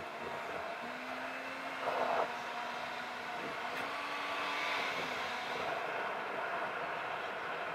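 Car driving noise, road and engine sound played back at four times speed, so the engine note glides up and down in short quick sweeps. A brief louder burst of noise about two seconds in.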